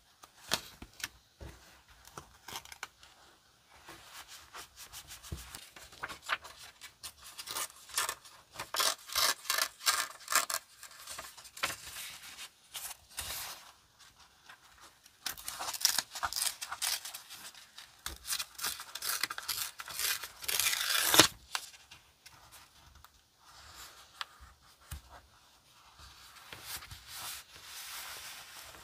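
Paper rustling and crinkling as hands handle, rub and smooth sheets of paper onto a journal page. The crackling comes in two long busy stretches, the second ending in one sharper tap.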